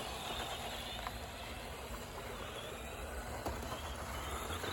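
Several Tamiya TT02 electric RC rally cars running laps, their motors a faint whine rising and falling over a steady background hiss.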